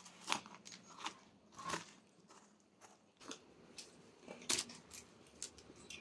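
Curved iron scraper scraping the soft white flesh out of a halved ash gourd: faint, irregular crunchy scrapes, roughly one or two a second.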